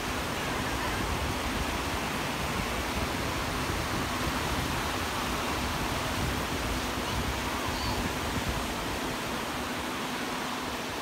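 Atlantic surf breaking on a sandy beach: a steady rushing wash of waves.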